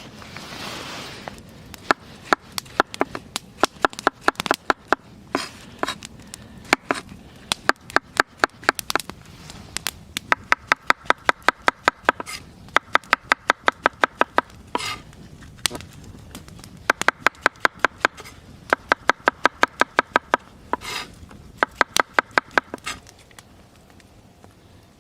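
Rapid chopping strokes on a board in runs of a few seconds, about five a second, each hit giving a short ringing tap.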